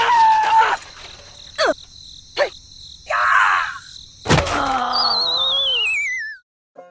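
A quick string of cartoon-style sound effects: a falling, groan-like tone, short falling whistles and knocks, a loud thump about four seconds in, then a warbling falling whistle that cuts off suddenly.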